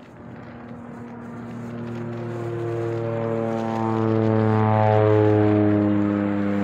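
Steady drone of a road vehicle's engine, one even pitch with many overtones over road noise, growing louder over about five seconds and then easing slightly.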